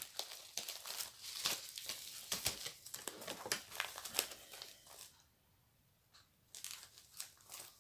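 A diamond-painting kit's packet crinkling and crackling as it is handled and cut open with scissors: a run of small rustles and clicks that stops for over a second about five seconds in, then starts again briefly.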